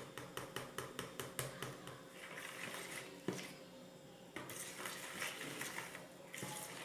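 A utensil stirring a thick batch of white-glue slime in a bowl. A quick run of clicks against the bowl comes first, then softer scraping and stirring.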